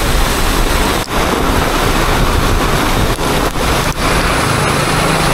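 Heavy rain pouring down onto a wet street, with a dump truck's diesel engine coming alongside; its steady low hum grows plain near the end.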